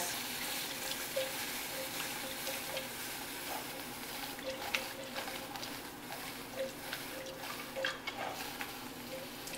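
A whisk stirring broth into a hot flour-and-onion mixture in a stainless steel saucepan, with a steady sizzling hiss of liquid on the heat. Scattered light clicks come from the whisk striking the pan.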